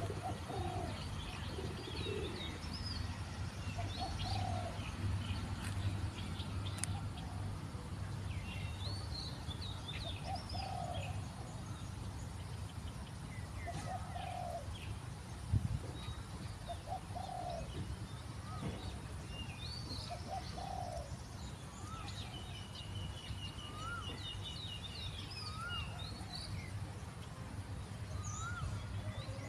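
Doves cooing, a short low call repeated every two or three seconds, among the chirps of small birds and over a steady low rumble. A single thump comes about halfway through.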